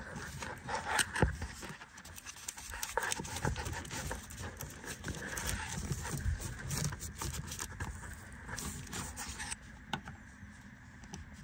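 Hands working plastic wiring-harness connectors behind a car door panel: irregular clicks, small knocks and rustling of the plastic door vapor barrier, busiest in the first half and sparser near the end.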